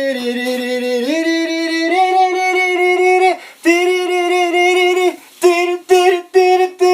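A single voice singing long, steady held notes that step up in pitch about one and two seconds in. After a brief breath it holds one more long note, then breaks into a run of short repeated notes for the last second and a half.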